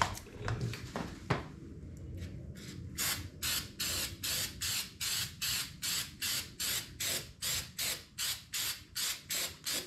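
Aircraft paint stripper being sprayed from its spray nozzle in quick, even squirts, about three a second, starting about three seconds in.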